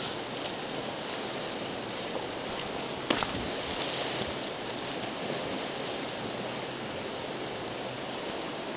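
Shallow river running over stones: a steady rushing of water. A single sharp knock sounds about three seconds in.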